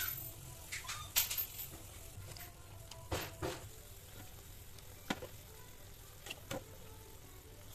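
Spiced fish broth bubbling at a boil in a pan, with a handful of sharp pops and clicks scattered through it.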